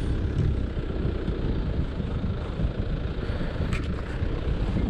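Car driving along a gravel track: a steady low rumble of tyres on the gravel and the engine running.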